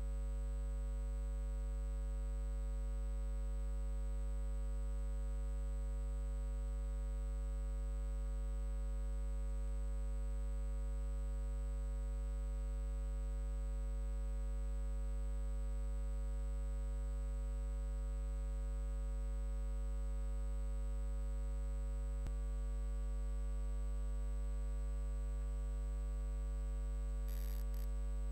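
A steady, unchanging electrical hum of several held buzzing tones. A faint click comes about 22 seconds in.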